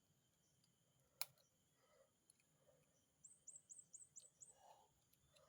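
Near silence, broken by a single sharp click about a second in and a quick run of five high chirps from a small bird past the middle.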